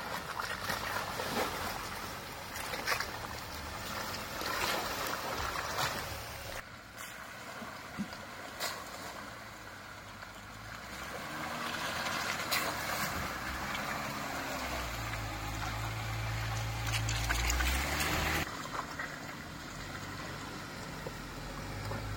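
An off-road truck driving on a rough unmaintained dirt road: steady tyre and road noise with scattered knocks and clunks. About halfway through, a low engine rumble swells and wavers for several seconds, then cuts off abruptly.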